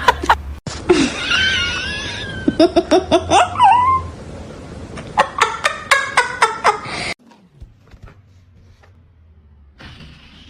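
People laughing in short rapid bursts, after a high wavering cry from a voice or an animal; the sound cuts off abruptly about seven seconds in, leaving a much quieter stretch with a few faint clicks.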